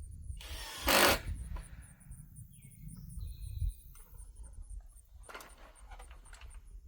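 Insects chirping in a fast, steady, high-pitched pulse, about five a second. A loud, short rush of noise cuts across it about a second in, and a few light knocks follow later.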